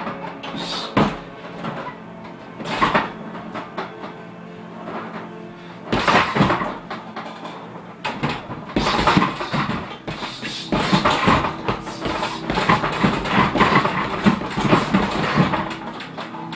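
Gloved punches and kicks landing on a hanging heavy bag: single heavy strikes spaced a few seconds apart, then a quicker flurry of blows from about eleven seconds in.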